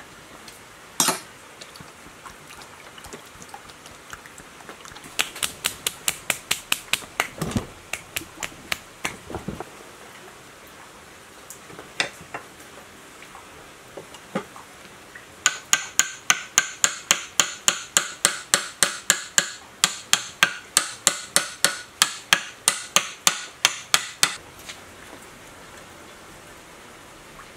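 Rapid, evenly spaced metallic clicks or taps from hand tools on the pump's metal casing during reassembly. There is one sharp knock about a second in, then a run of clicks, and later a longer, louder run of about three a second that stops suddenly near the end.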